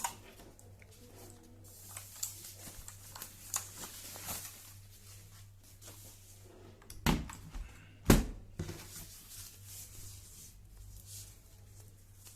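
Unpacking and handling noises from a cardboard keyboard box and its packaging: light rustling and small clicks, with two louder thumps about seven and eight seconds in.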